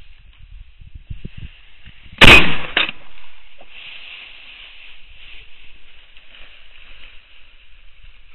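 A shotgun fires once, close and very loud, about two seconds in, followed about half a second later by a second, weaker bang.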